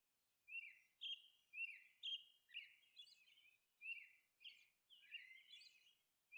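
Faint birds chirping, short high calls repeated about twice a second over otherwise near silence.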